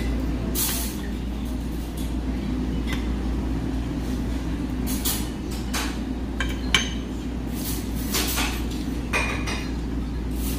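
Metal forks clinking and scraping on ceramic dinner plates while eating, a handful of short sharp clinks, the sharpest about halfway through, over a steady low background hum.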